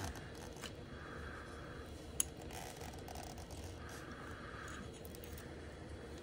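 Faint handling noise: gloved hands rubbing and rustling against a plastic-wrapped motorcycle instrument cluster as it is turned, in two soft spells, with one sharp click a little over two seconds in.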